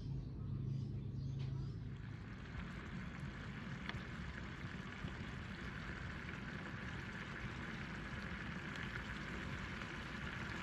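Chicken liver and egg adobo simmering in a pan: a steady sizzling hiss of the bubbling sauce, which starts about two seconds in after a low steady hum.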